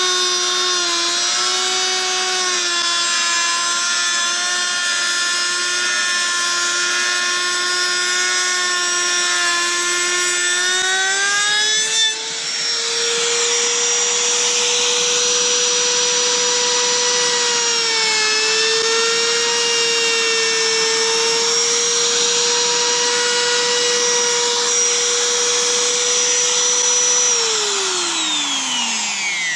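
Electric trimmer (compact router) routing the edge of a wooden board with a steady high motor whine. About halfway through the cut ends, and the whine rises to a higher pitch as the motor runs free and unloaded. Near the end it is switched off, and the whine falls away as the bit spins down.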